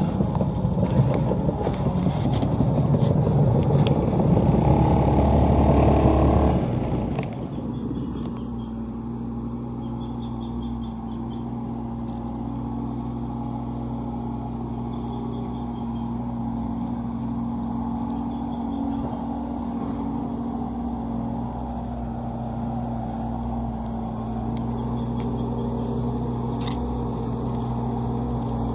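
Sumitomo SH130LF hydraulic excavator's diesel engine running loud and busy under working load for about the first six seconds, then dropping suddenly to a quieter, steady hum.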